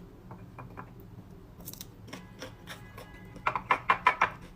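A series of light clicks and taps, with a quick run of louder clicks about three and a half seconds in.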